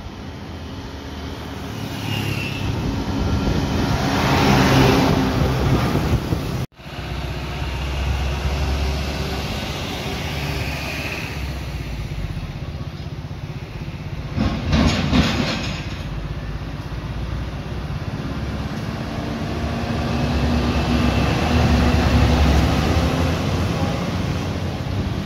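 Roadside traffic with vehicles passing, one swelling and fading about four seconds in. After a break about seven seconds in, the low diesel rumble of a Hino 700 (Profia) tractor unit pulling a lowboy trailer builds as it comes past, loudest near the end.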